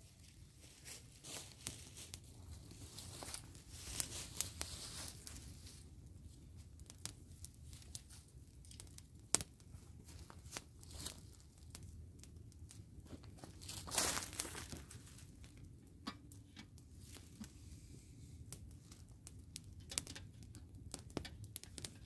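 Dry fallen leaves rustling and crunching as someone moves and steps about in the leaf litter, with scattered small sharp clicks and snaps; a louder rustle about four seconds in and another near the middle.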